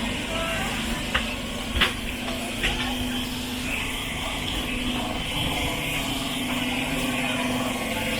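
Busy street-market ambience: steady traffic noise with an engine hum, and the chatter of people in the crowd. A few sharp knocks sound within the first three seconds.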